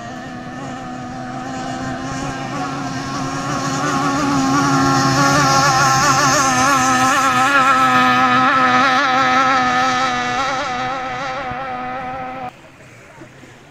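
Methanol-fuelled outboard motor of a racing hydroplane running flat out as the boat passes. It grows louder to a peak midway, its pitch wobbling, then eases off. About twelve seconds in it cuts abruptly to much quieter shore ambience.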